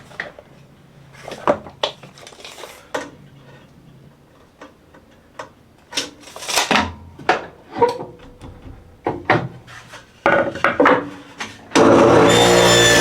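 Wooden boards knocking and rubbing in a run of scattered knocks and clicks as the cut is set up. Near the end a table saw switches on abruptly and runs loudly and steadily.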